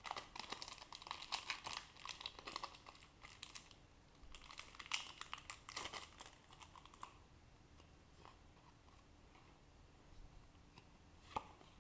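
Foil wrapper of a Pokémon trading-card booster pack crinkling as it is opened and the cards slid out. The crinkling comes in two spells of quick crackles over the first seven seconds or so, then dies down, with one soft tap near the end.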